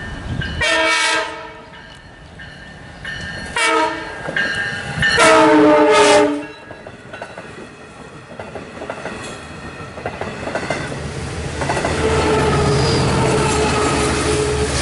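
Horn of a Long Island Rail Road C3 bilevel cab car blowing for a grade crossing: a blast about a second in, a short one at about four seconds and a longer one ending about six and a half seconds in. The bilevel coaches then rumble and clatter past, and near the end the DE30AC diesel locomotive pushing at the rear comes by with a steady, louder engine drone.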